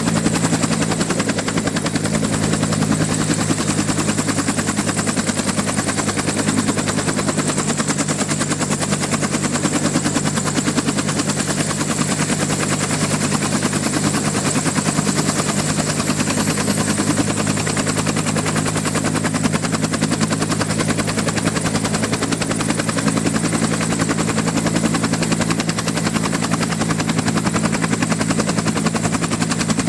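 Electromagnetic interference picked up as sound: a steady electrical hum of several even tones with a dense, rapid buzzing pulse over a hiss. It stays unchanged throughout.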